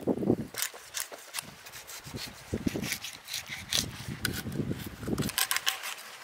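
A knife slicing along a garfish's backbone and scraping on a cutting board as the fillets are cut away: an irregular run of short scrapes and clicks.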